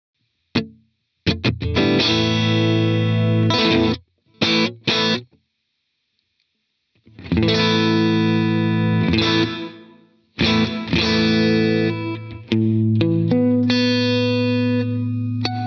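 Electric guitar played through a reverb pedal rig: strummed chords cut off short, with silent pauses between them, then chords left to ring with single notes picked over them near the end.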